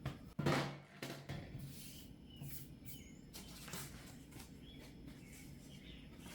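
Sheet steel being handled and marked on a workbench: a louder clatter with a short low ring about half a second in, then light knocks and scrapes. Small birds chirp in the background.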